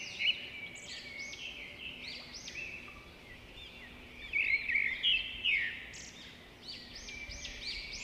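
Small birds chirping: many quick, overlapping rising-and-falling notes, busiest a little past the middle and again near the end.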